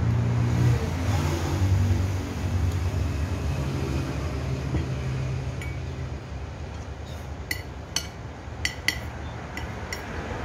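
A road vehicle's engine drones at a low pitch, fading after about six seconds. Then comes a quick run of sharp clinks as a metal spoon and fork strike a plate during eating.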